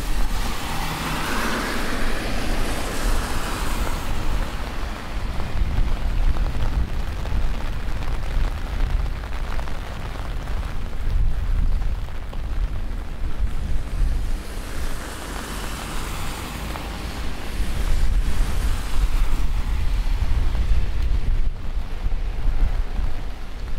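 Strong gusty storm wind buffeting the microphone in a constant low rumble, over a steady hiss of rain and wet pavement. The hiss swells twice, near the start and again about two-thirds through.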